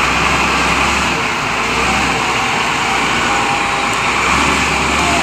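Bulldozer's diesel engine running steadily, a loud continuous noise with a low hum that swells and fades.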